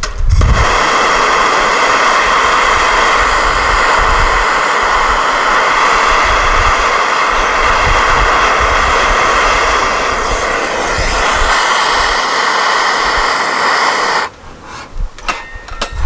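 Vacuum cleaner motor running with a steady whine, switched on just after the start and shut off about fourteen seconds in.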